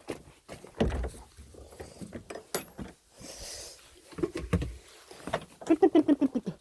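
Chicken giving rapid runs of clucks that fall in pitch, twice in the second half, among scattered knocks and a brief rush of hiss.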